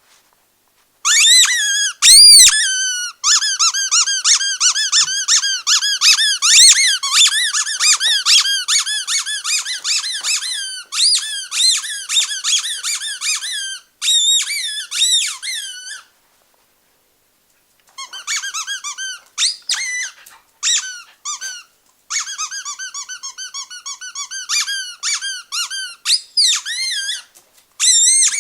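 Squeaky rubber dog toy being squeezed over and over in quick runs of high squeaks, each one rising and falling in pitch, with a few short pauses between runs.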